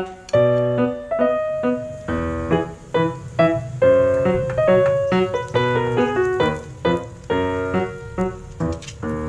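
Background music played on a piano-like keyboard: a bright melody of short notes struck in a steady, even rhythm.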